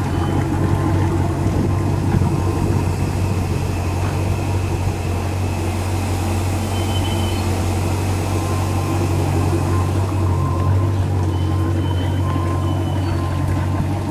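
Rebuilt boat engine idling steadily while being flushed with fresh water through a flushing attachment.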